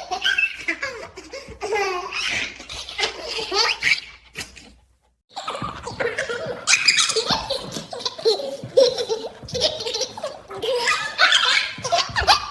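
A baby laughing and giggling in repeated bursts, broken by a brief silence about five seconds in.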